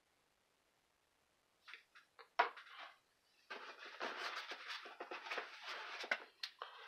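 Faint handling sounds: a few light clicks about two seconds in, then about three seconds of rustling with small clicks, as a pocketknife is laid down on a cutting mat and the next packaged knife is reached for.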